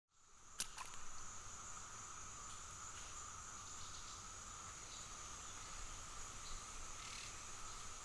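A steady insect chorus: two unbroken high-pitched drones that do not vary, over a faint hiss. One sharp click sounds just after the sound fades in at the start.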